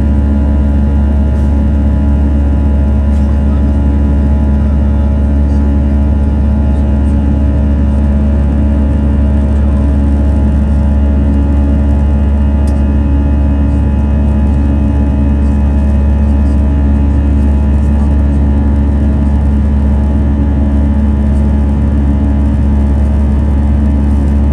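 Airbus A319 cabin noise in the climb after takeoff, heard at a window seat beside the wing: the CFM56-5B turbofan engines run at climb power as a steady, deep drone with a constant hum over it.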